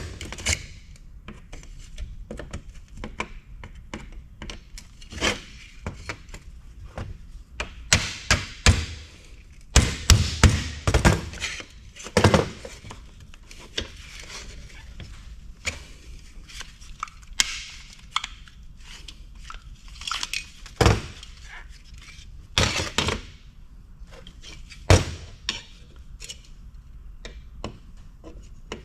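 Hammer blows on metal, irregular sharp strikes and clinks, some in quick runs of several blows with short pauses between.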